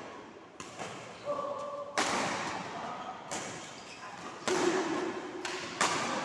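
Badminton rackets striking the shuttlecock in a rally: six sharp hits roughly a second apart, each trailing off in the echo of a large hall.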